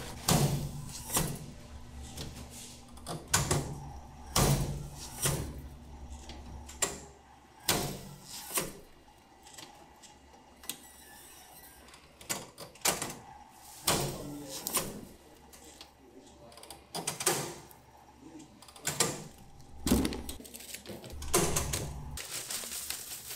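Irregular knocks, clacks and thumps from cracker-production work, roughly one a second: crisp crackers, metal baskets, machinery and packaging being handled.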